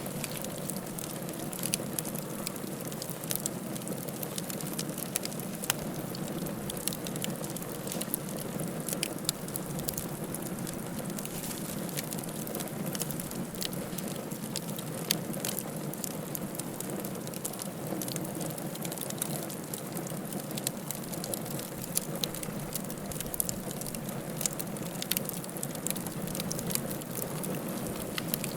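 A fire burning in a fireplace, crackling steadily with frequent sharp pops and snaps over a low, even rush of flame.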